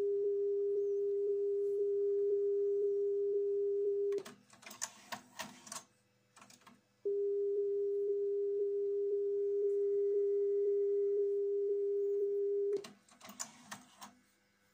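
Steady 400 Hz Dolby level test tone played from a test cassette on a Nakamichi RX-202 deck. About four seconds in it cuts off for a run of clicks and clatter as the deck's auto-reverse mechanism flips the cassette over. The tone returns about seven seconds in and stops again near the end with another round of mechanism clicks.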